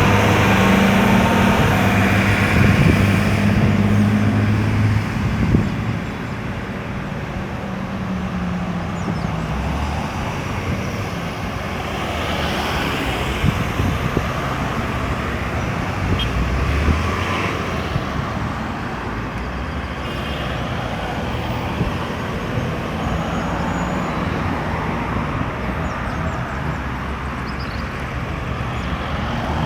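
Road traffic moving around a busy roundabout. A low engine runs loudly close by for about the first five seconds and then fades, leaving a steady wash of traffic noise with vehicles passing now and then.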